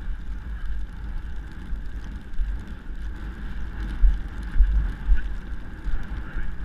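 Wind buffeting the microphone of a helmet camera on a rider cantering a horse, a heavy uneven rumble with louder swells about every half second in the second half.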